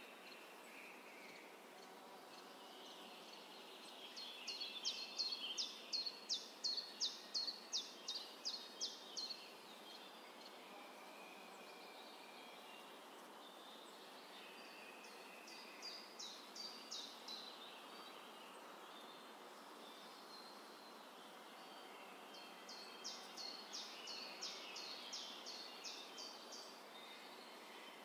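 A songbird singing in three bouts of quick, high, down-slurred notes, about three a second, each bout lasting a few seconds. Under it runs a steady faint outdoor hiss.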